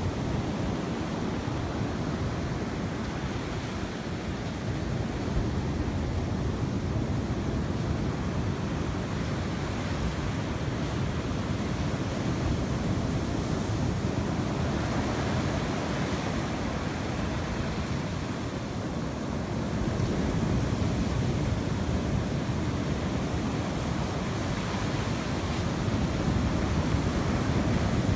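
Sea surf washing in, a steady rushing that swells and eases a few times, with wind rumbling on the microphone.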